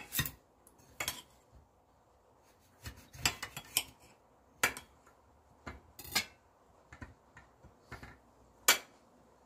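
Kitchen knife cutting a lemon on a ceramic plate: scattered sharp clinks and taps of the blade against the plate, the loudest one near the end.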